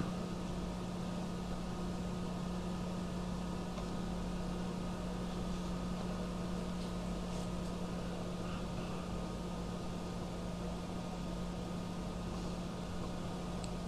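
Steady room tone: a constant low hum over an even hiss, with a few faint clicks of small objects being handled.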